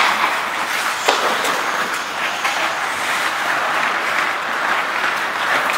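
Ice hockey game sounds: skate blades scraping and carving on the ice in a steady hiss, with a sharp clack about a second in.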